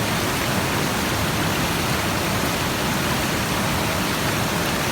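Steady, even rush of a waterfall, water pouring and splashing.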